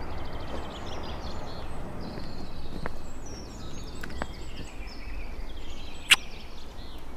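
Outdoor ambience: a steady hiss of background noise with small birds chirping and trilling now and then, and a single sharp click about six seconds in.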